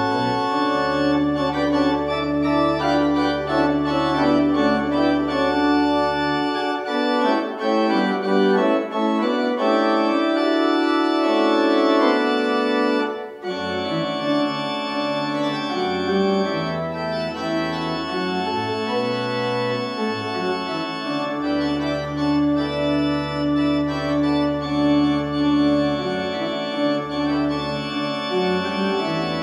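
Organ music: slow, held chords over deep pedal bass notes, the bass dropping out for several seconds about a quarter of the way in.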